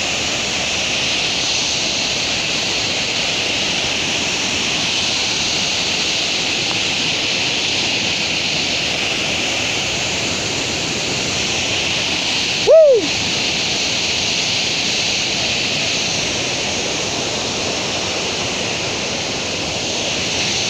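Tall waterfall rushing in a steady, even roar of falling water. About two-thirds of the way through, a brief whistle-like tone rises and falls once, louder than the water.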